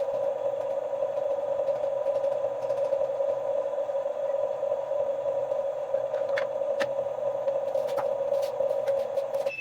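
A small electric motor running steadily with an even mid-pitched hum, with a few faint clicks in the last few seconds.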